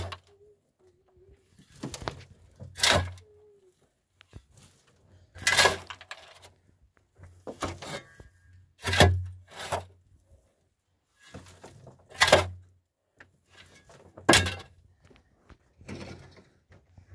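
A series of about a dozen heavy knocks or thuds at an irregular pace, often in pairs, each with a brief ringing tail.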